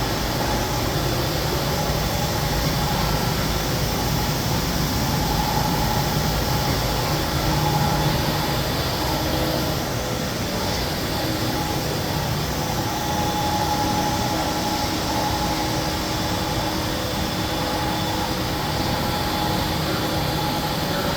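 Mikron UCP 600 Vario five-axis machining center running a job: a steady machine whir and hum, with faint tones that rise and fade every few seconds.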